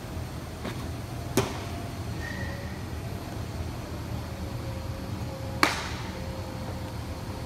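Two sharp leather pops of a baseball smacking into a glove, about four seconds apart: the first is the pitch landing in the catcher's mitt. A steady low hum runs underneath.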